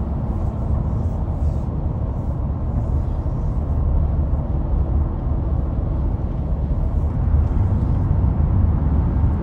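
Steady low rumble of road and engine noise inside a moving car's cabin as it drives along the highway.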